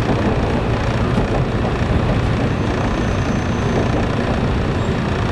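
Steady running noise inside a moving JR 113-series electric train carriage: a constant low rumble of motors and wheels on rail.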